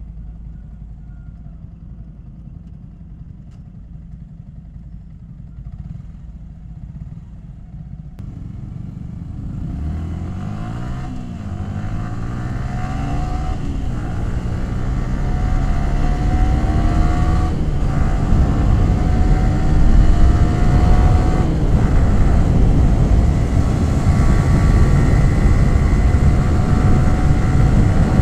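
Yamaha R15 V3's 155 cc single-cylinder engine running low and steady for about eight seconds, then accelerating through the gears: the exhaust note climbs in pitch, drops at each of about four upshifts, and climbs again. It grows steadily louder, with wind noise building as speed rises.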